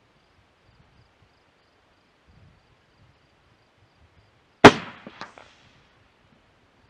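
.45-70 rifle fired once, a single sharp, loud report about two-thirds of the way in, followed about half a second later by a fainter second crack.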